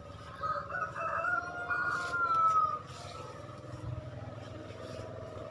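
A rooster crowing: one long call starting about half a second in and lasting a little over two seconds, its pitch rising slightly and then holding.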